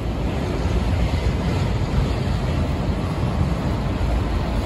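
Autorack freight cars rolling past: a steady, heavy rumble of steel wheels on the rails with no engine tone.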